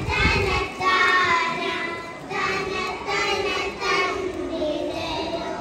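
A group of kindergarten children singing a song together.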